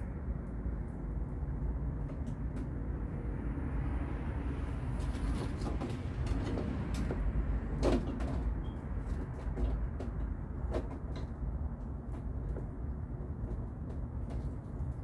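Scattered small clicks and light knocks of wires and snap-lock splice connectors being handled and pressed together, with one louder knock about eight seconds in, over a steady low rumble.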